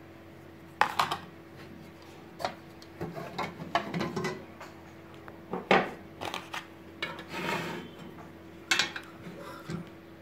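Irregular metal clinks, taps and scraping as a comb busbar is handled over a steel distribution board and set against the terminals of miniature circuit breakers. One clink about halfway through is the loudest.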